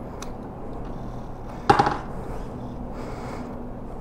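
A single sharp metallic clank with a brief ring, a little under halfway through, over a low steady hum.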